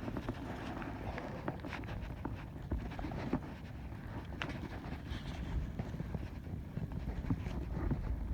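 Wind buffeting the microphone with a low, steady rumble, and scattered light clicks and taps over it.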